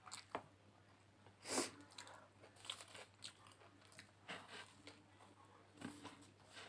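Faint biting and chewing of an egg roll (egg-fried paratha wrap), a scatter of short crunchy noises; the loudest comes about one and a half seconds in.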